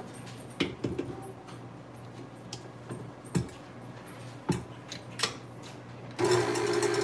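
A few sharp metal knocks and clinks as a KitchenAid tilt-head stand mixer's head and wire whisk are raised and lowered against the stainless steel bowl. About six seconds in, the mixer motor starts and runs with a loud, steady whir, its whisk hitting the bottom of the bowl.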